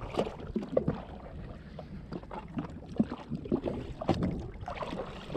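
Small waves lapping and slapping against the hull of a drifting jet ski: a run of soft, irregular splashes and knocks over a low wash.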